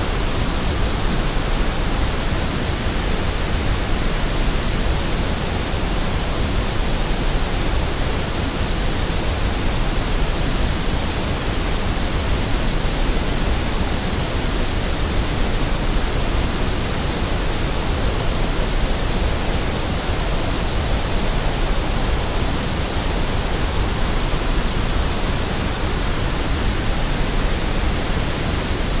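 Steady generated white noise: an even, unbroken hiss with no changes or events.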